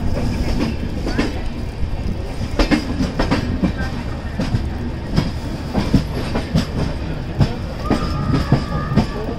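Express train's coach wheels clattering over rail joints and points, with irregular sharp knocks over a steady rolling rumble.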